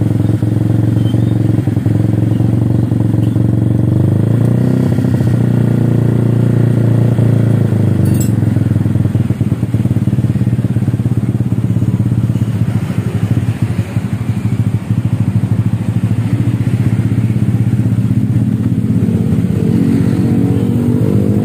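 Honda Vario scooter's single-cylinder engine running steadily and loud through a freshly fitted SKR racing exhaust, climbing in pitch near the end as it is revved.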